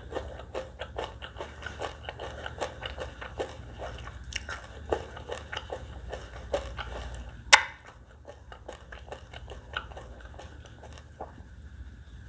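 Close-miked chewing and biting of spicy catfish salad with sour green mango: a quick run of wet, crunchy mouth clicks. One much louder sharp snap comes about seven and a half seconds in, after which the chewing turns sparser and quieter.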